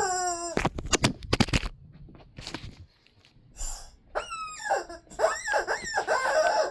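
Squeaky dog toy being squeezed. One squeak falls in pitch at the start, followed by a quick run of sharp clicks. After a quieter gap, several more squeaks come in the second half.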